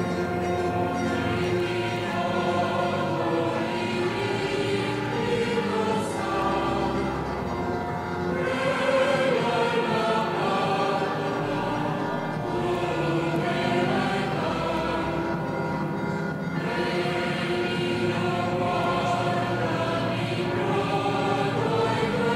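A choir of many voices singing a hymn, holding long notes that change every second or so without a break.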